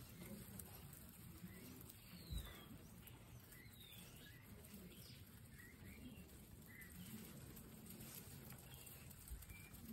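Faint, quiet sound of a group of guinea pigs eating fresh grass, with scattered small high chirps throughout and one soft low thump a little over two seconds in.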